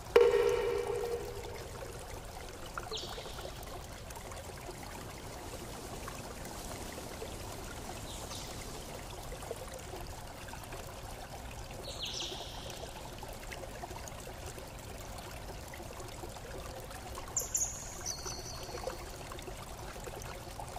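Outdoor ambience: a steady rushing hiss, with a few short, high chirps scattered through. It opens with a loud ringing tone that dies away over about two seconds.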